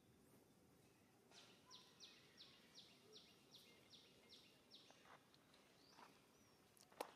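A faint bird call: a run of about nine quick, evenly spaced high chirps, each sliding slightly downward, about three a second. A single sharp click comes near the end.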